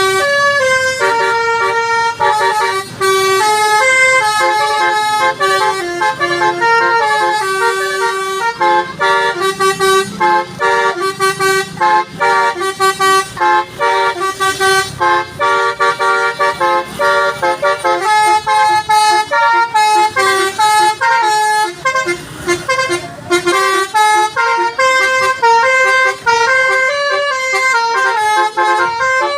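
Basuri bus's multi-tone 'telolet' air horn playing a fast melody, note after note with brief breaks, almost without pause.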